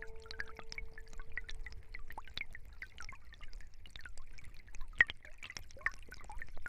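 Stream trickling and gurgling, with many small drip-like bubbling sounds and one sharper click about five seconds in. A held chime tone fades out within the first two seconds or so.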